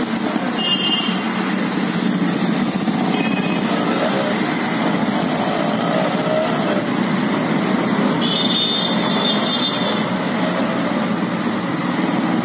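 City street traffic: auto-rickshaws, a motorcycle and cars running past, a steady mix of small-engine and tyre noise, with a few brief high tones over it and a longer one near the end.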